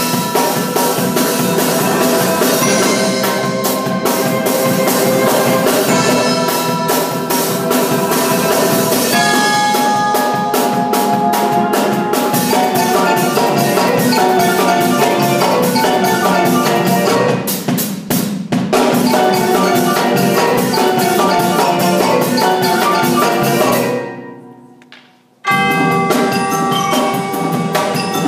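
Percussion ensemble playing: marimbas and vibraphones in quick struck notes over a drum kit. Near the end the sound dies away for about a second and a half, then the full ensemble comes back in at once.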